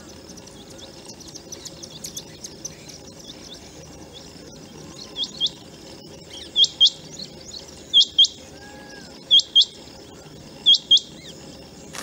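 Rain quail calling: a sharp high double note repeated five times, one pair about every second and a half, starting about five seconds in. Fainter chirps come before the first pair.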